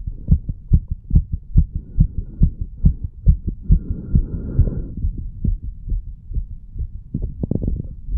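A human heartbeat picked up through a stethoscope microphone on the chest over the heart valve areas, a steady run of short, low lub-dub thumps. A soft rushing noise rises under the beats in the middle.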